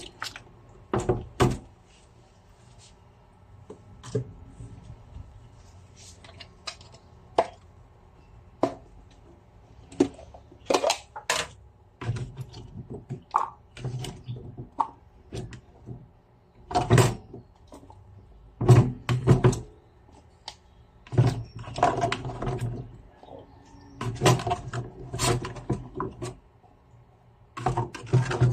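Kitchen handling sounds: irregular knocks, clinks and thuds of dishes and utensils being set down and moved, some in short clattering clusters.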